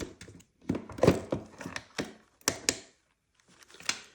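Handling noise from a 100 W charging adapter and its cable being handled: a run of irregular sharp plastic clicks and knocks, with a short pause about three seconds in.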